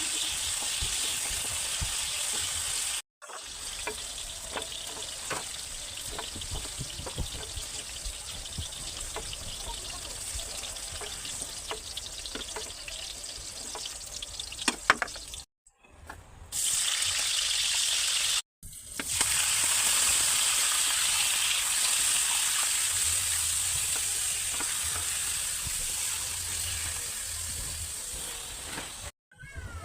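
Food frying in hot oil in a pan for chicken afritada, a steady sizzle with scattered small clicks and pops. It breaks off briefly a few times and comes back, louder in the last stretch.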